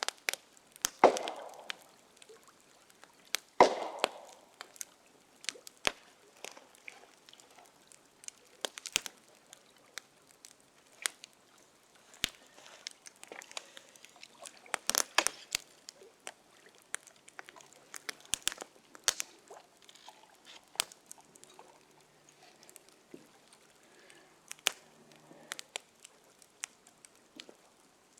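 Two loud, echoing wood knocks about a second and about four seconds in: the last of three deliberate knocks struck to call for a reply. After them come many short, sharp pops and cracks scattered irregularly, the crackling of a campfire.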